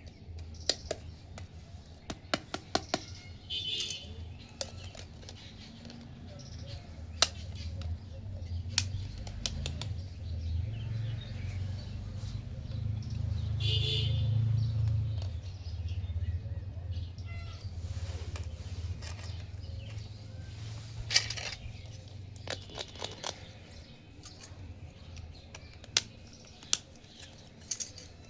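Small plastic toy kitchen pieces being handled, clicking and tapping sharply at irregular moments, over a low rumble that swells about halfway through.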